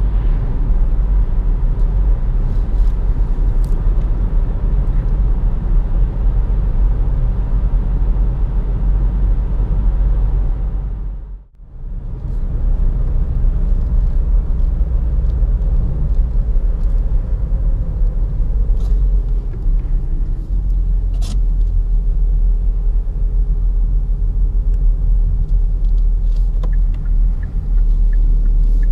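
Kia Optima SW estate with a 1.7-litre four-cylinder turbodiesel, driving and heard from inside the cabin: a steady low rumble of engine and road noise. It fades out briefly about eleven seconds in, then comes back.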